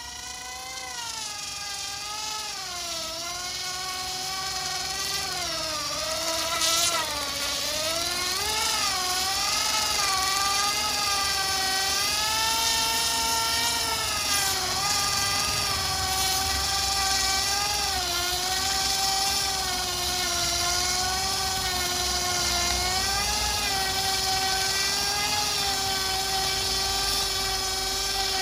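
Turbowheel Phaeton electric scooter doing a burnout: the rear hub motor whines at full power while the rear tyre spins and scrubs on concrete, its pitch wavering up and down. It grows louder over the first ten seconds or so, then holds steady.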